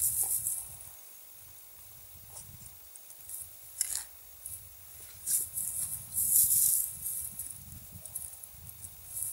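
Nylon cast net rustling and its lead weights rattling in irregular bursts as the net is gathered and shaken out in the hands, loudest a little past the middle.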